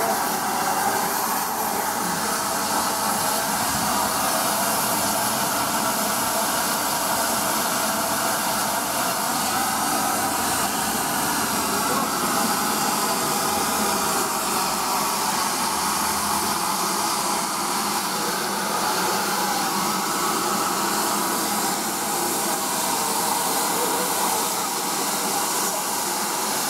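Steam hissing steadily from a standing GWR 5205-class 2-8-0 tank locomotive, no. 5239 'Goliath'.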